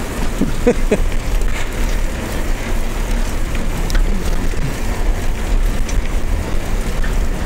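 Wind buffeting the microphone as a tandem bicycle rides along the street: a steady low rumble, with a couple of short chirps and clicks about half a second in.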